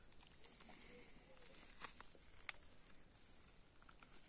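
Near silence, with a few faint crackles of footsteps on dry leaves and twigs about two seconds in.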